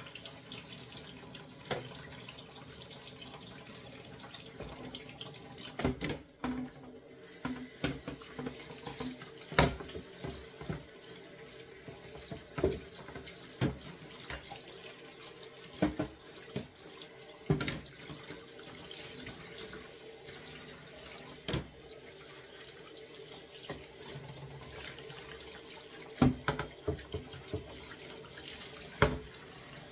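Kitchen tap running into a sink while a cutting board is washed under it, with scattered knocks and clatters against the sink.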